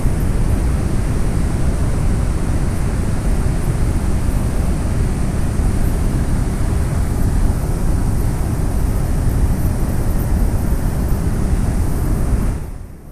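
Steady low rumble of outdoor noise, wind buffeting the microphone over city traffic, dropping away briefly near the end.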